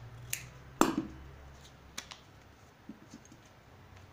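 Scissors snipping a paper sewing pattern: a few sharp clicks. The loudest comes with a knock about a second in, over a low steady hum.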